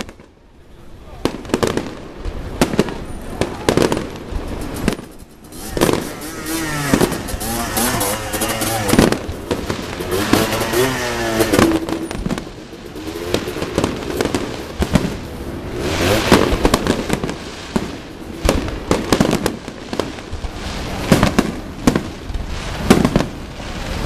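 Aerial fireworks bursting overhead in a continuous barrage: a rapid, uneven string of bangs and crackles, heaviest about two-thirds of the way in and near the end.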